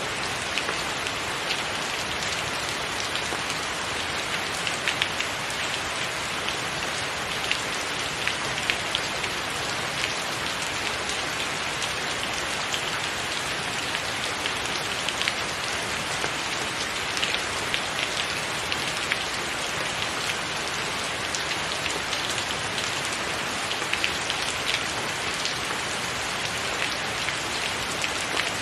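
Steady rain falling on a tiled roof: an even hiss of rain with many small, sharp drop ticks throughout.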